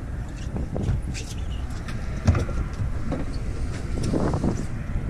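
Steady low rumble of wind and choppy water around a small boat, with irregular small splashes and one sharper knock a little over two seconds in.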